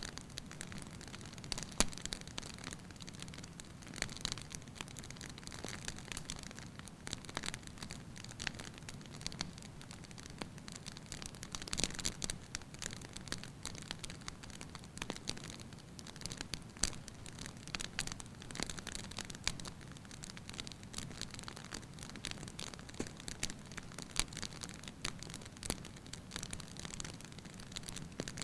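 Wood fire burning in a fireplace, crackling and popping irregularly over a soft steady hiss.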